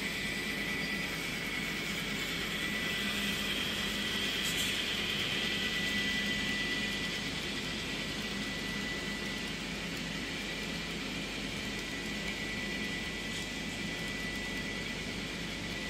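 Model train of two NR class diesel locomotives and passenger carriages running along the layout track: a steady whirring hiss with a thin, high, constant whine, swelling a few seconds in as the train passes close.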